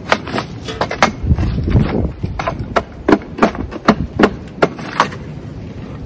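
Terracotta pots and shards clattering and knocking together as they are poked, rattled and moved: about fifteen sharp, irregular knocks, stopping about five seconds in.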